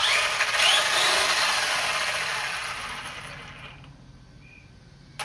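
Traxxas Rustler RC truck's electric motor and drivetrain spinning up at full throttle with the wheels free in the air: a sudden rising whine over a hiss of gears, then winding down slowly over a few seconds. Near the end the throttle is pulled again and the whine rises once more. This is a run-up test for a shaking truck and a possibly bent drive shaft.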